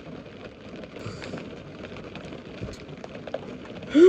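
Faint, steady crackling noise with a few small clicks, then a short voiced hum near the end.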